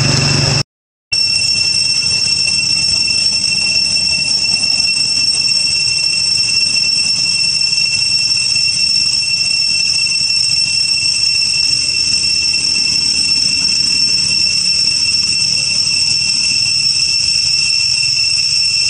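Insects droning in the trees: a loud, steady, high-pitched whine that holds one pitch, briefly cutting out for a moment about a second in.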